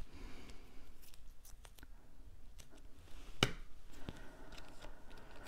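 Paper-craft handling: adhesive foam squares being peeled from their backing and pressed onto cardstock, a scatter of small ticks and faint crinkles, with one sharper click about three and a half seconds in.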